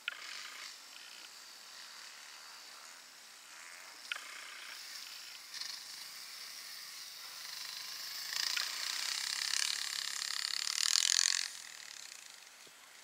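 Off-road motorcycle engine running through a snowy corner, building as the bike comes through and loudest for about three seconds in the second half, then dropping away sharply.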